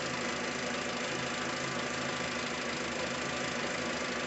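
Car engine idling steadily, with new spark plug wires fitted to cure a cylinder 4 misfire.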